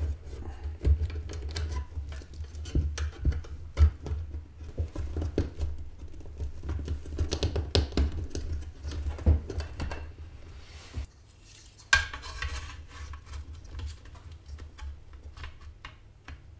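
Hands working the wiring inside an open ATX computer power supply: a busy run of small clicks, taps and rattles of cables and plastic against the metal case, thinning out after about eleven seconds, with one sharp click about twelve seconds in.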